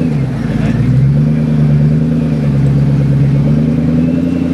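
Ford GTX1's supercharged 5.4-litre V8 running at low revs as the car moves off slowly. The engine note dips about half a second in, then picks up and holds steady.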